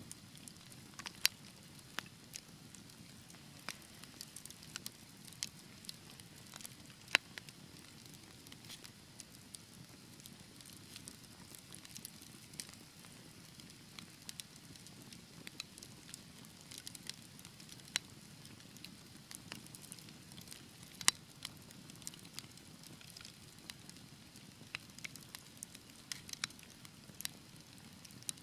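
Wood fire burning in a fireplace: a low steady rumble of flames with scattered sharp crackles and pops at irregular intervals, a few of them loud.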